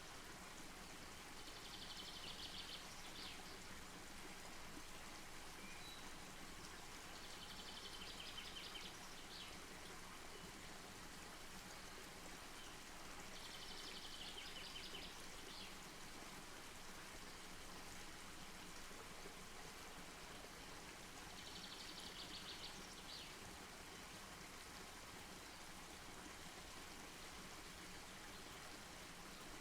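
Campfire burning with a faint, steady hiss. A short, high, rapidly pulsing trill repeats four times over it, about six seconds apart.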